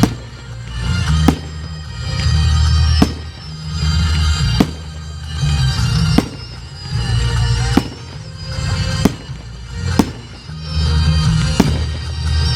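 Fireworks going off, with sharp bangs about every second and a half, over continuous music with a heavy bass line.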